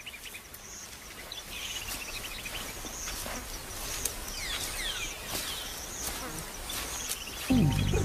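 Wild outdoor ambience of insects buzzing and small birds chirping, with fast ticking trills and short falling calls. Low, steady music comes in near the end.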